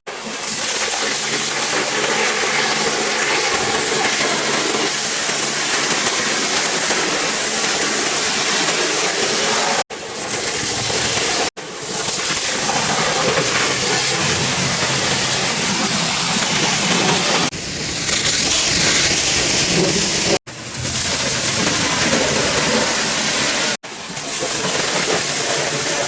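Pressure washer spraying water in a steady loud hiss. It cuts off abruptly four times and starts again.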